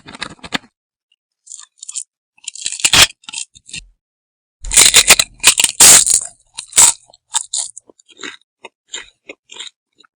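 Close-up crunchy biting and chewing in irregular bursts, loudest and densest about five to six seconds in.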